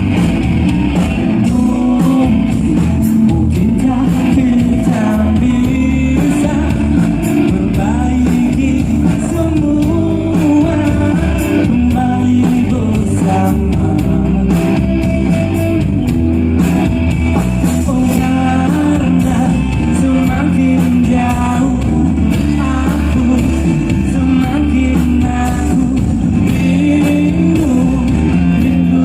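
Live rock band music, loud and continuous, with electric guitar.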